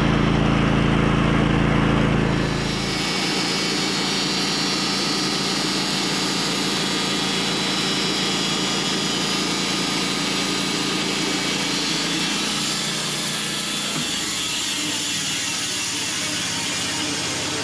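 Portable band sawmill running through a black walnut log, a steady machine drone with a saw hiss. Its deep low hum drops away about three seconds in, the sound shifts again near the end, and it stops abruptly.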